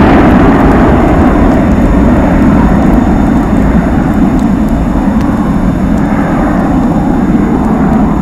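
Jet engines of an Airbus A300 airliner climbing away after take-off: a loud, steady rumble that slowly fades as the aircraft recedes.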